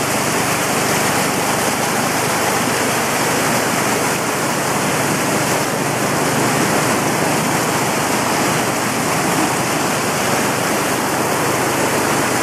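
Muddy floodwater from a river that has burst its bank, rushing and churning through a wooden fence and across a towpath: a loud, steady, unbroken rush of water.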